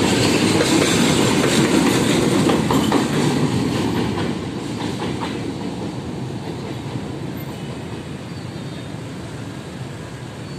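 Vietnam Railways passenger train passing over a level crossing, with its wheels clattering over the rail joints as the D19E diesel locomotive at the tail goes by. The rumble fades steadily from about four seconds in as the train moves away.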